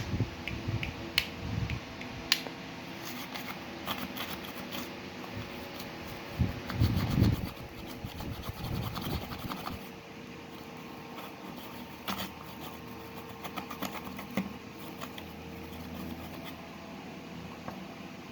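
Toothbrush bristles scrubbing corrosion off a car stereo control stalk's circuit board, in quick scratchy strokes that are densest through the middle, with a few handling bumps. A steady hum runs underneath.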